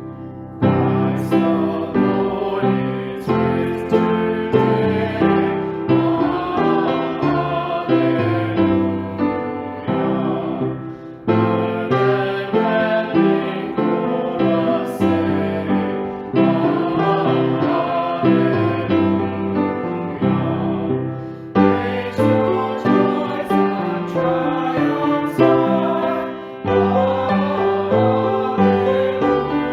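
Piano hymn music with singing voices, played in phrases with short breaks between them.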